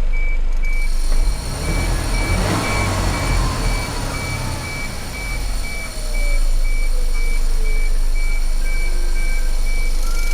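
Mitsubishi Fuso Super Great heavy truck running, with a faint whine that falls slowly in pitch over several seconds while a high electronic beep repeats about three times a second. The engine rumble swells about a second in and settles back about six seconds in.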